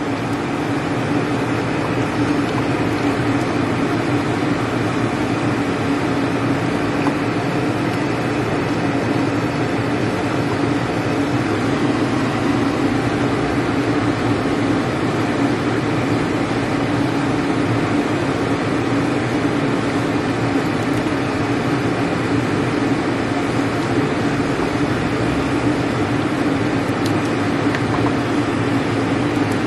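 A fan running with a steady, even hum.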